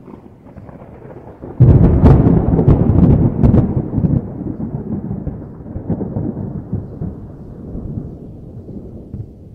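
Thunder: a sudden loud clap about one and a half seconds in with a few sharp cracks, then a long low rumble that slowly dies away.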